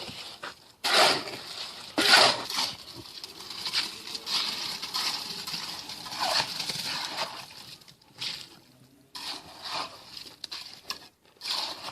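Irregular scraping and scuffing strokes of masonry work, a trowel or shovel working wet concrete among stones, coming every second or two.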